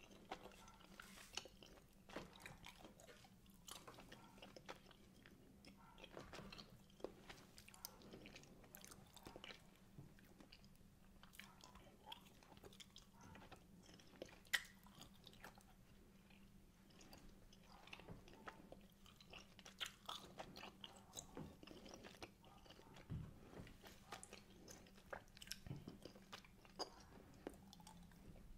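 Faint, close-miked chewing of wine gums: irregular soft wet clicks and smacks of the mouth working the chewy gummy sweets, with one sharper click about halfway through.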